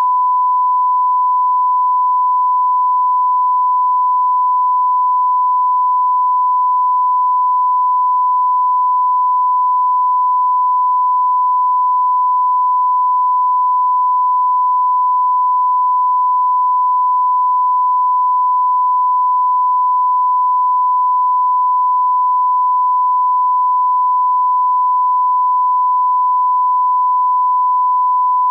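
A steady, unbroken pure test tone at one pitch: the audio reference tone that runs with SMPTE colour bars, used to line up playback levels.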